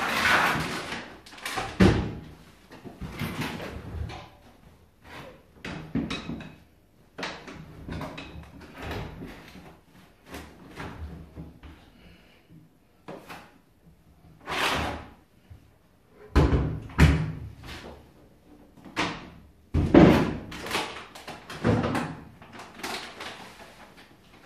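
A person rummaging around washing machines: an irregular run of knocks, bangs and clatter, with several heavier thuds like machine doors or lids banging shut, the loudest about two seconds in, around seventeen seconds in and about twenty seconds in.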